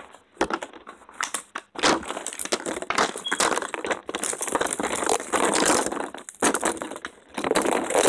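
Close, loud crinkling and rustling handling noise, with many sharp clicks, from hands fumbling right at the microphone. It starts in earnest about two seconds in and comes in long crackly stretches with brief gaps.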